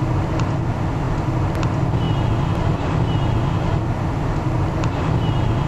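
Steady road and engine noise of a car being driven, a constant low drone with no change in speed.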